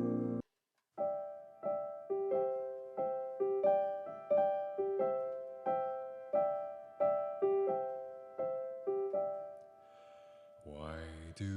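Music: a slow line of single keyboard notes, about one every 0.7 seconds, each struck and left to fade. A fuller sound comes in near the end.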